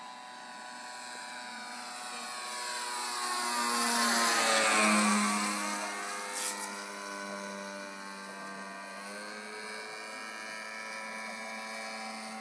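Radio-controlled aerobatic plane's OS-55 two-stroke glow engine running at high throttle as the model makes a pass. The buzz grows louder to a peak about five seconds in, its pitch dropping as the plane goes by, then eases off as it flies away.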